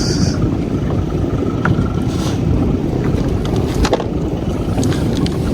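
Steady low rumble of a boat at sea with wind buffeting the microphone, broken by a few sharp knocks, the loudest nearly four seconds in.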